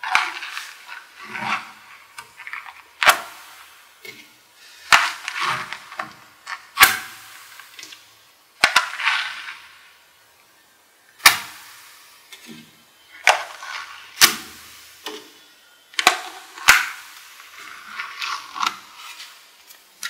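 Small magnetic balls snapping and clicking together as pre-built strips of balls are pressed onto a model made of them. There is a sharp snap about every two seconds, with bursts of rattling clatter between.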